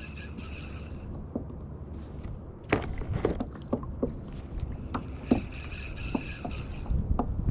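Light clicks and knocks of fishing gear against a kayak, over a steady low rumble of wind and water. A faint high whine comes twice, near the start and again about five seconds in.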